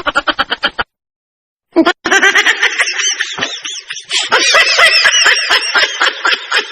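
Comedy laughter sound effects. A rapid, staccato laugh cuts off under a second in. After about a second of silence, a busy, high-pitched chattering laugh effect starts, full of quick pitch wobbles, and runs on.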